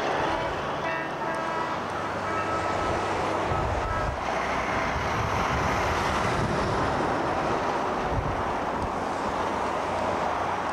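Highway traffic: heavy trucks rolling past at speed, a steady tyre-and-engine noise, with wind gusting on the microphone now and then.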